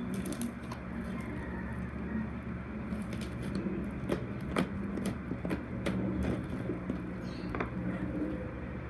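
Crunchy foam-ball slime being squeezed and poked, giving irregular small clicks, pops and crackles.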